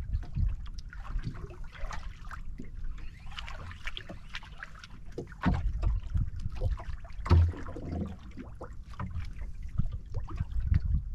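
Water lapping and gurgling against the hull of a small outrigger boat drifting at sea, over a low rumble, with scattered knocks; the loudest knock comes about seven seconds in.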